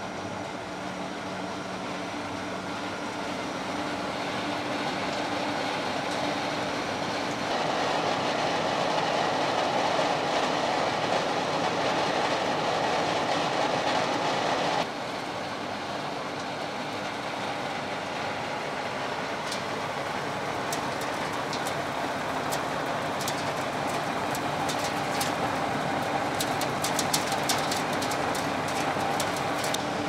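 STLP400 feed pellet line running: the pellet mill and screw feeder give a steady mechanical hum with a low steady tone. The level drops abruptly about halfway. In the last third, sharp clicks come thicker and faster as fresh pellets rattle out of the pellet mill's discharge chute.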